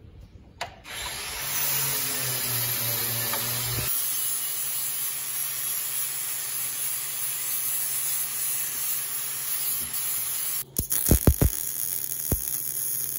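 An angle grinder with an abrasive disc grinding a steel planter closing-wheel tailpiece, running steadily with a high whine. About ten and a half seconds in it stops, and a MIG welder's arc crackles, with a few sharp cracks as the arc strikes.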